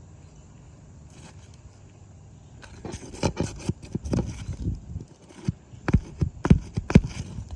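Roofing nails being worked out from under asphalt shingles with a metal tool: scraping and prying begin about three seconds in, followed by three or four sharp metallic taps about half a second apart near the end.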